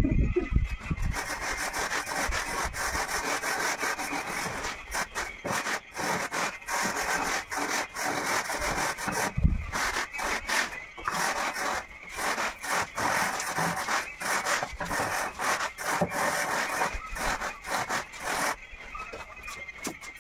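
A hand tool scraping back and forth over a sand-and-cement floor bed in quick repeated strokes, about two a second, which stop shortly before the end.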